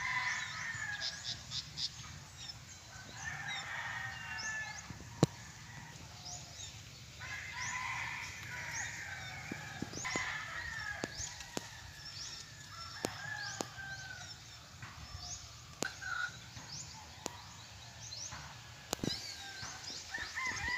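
Outdoor rural soundscape of small birds chirping rapidly and domestic fowl calling, over a low steady background, with occasional sharp clicks.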